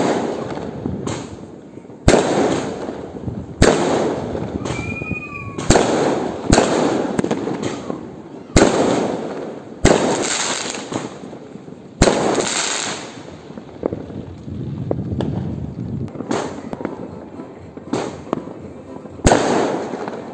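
Fireworks going off in quick succession: sharp bangs every one to two seconds, each trailing off in a fading rumble.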